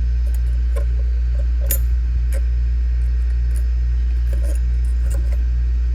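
Steady low hum of a hot air rework station, with scattered light clicks and clinks of tools handling the circuit board.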